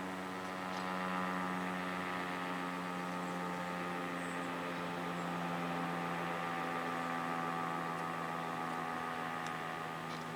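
Federal Signal STH-10A dual-tone rotating warning siren winding down after its short test blast: a low, steady, chord-like hum slowly falling in pitch as the rotor coasts to a stop.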